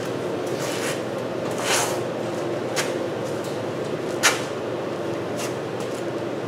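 Scattered knocks, clicks and rustles of hand work on a car engine in its engine bay, with one sharp knock about four seconds in. A steady hum sits underneath.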